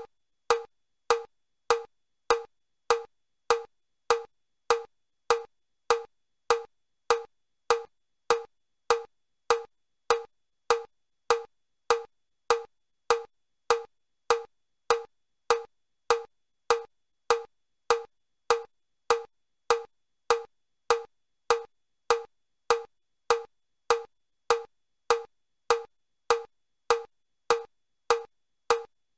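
Metronome clicking steadily at about 100 beats a minute, each beat a short, sharp click with a mid-pitched tone. It sets the stepping pace for level 3 of the Chester step test: four beats per step up and down, 25 steps a minute.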